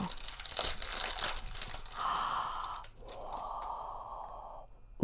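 Thin clear plastic wrapping crinkling and crackling as it is pulled off a 2x2 pocket cube, then two long breathy exhales about two and three seconds in.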